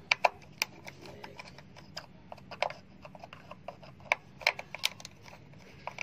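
Irregular small clicks and ticks of a screwdriver turning and seating in the screws of a water heater's wiring terminal block as the screws are loosened to free the wires.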